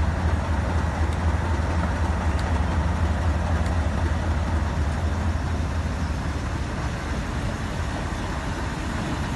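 Class 37 diesel locomotive's English Electric V12 engine idling with a steady low drone, which eases a little after about six seconds while a steam locomotive draws slowly past.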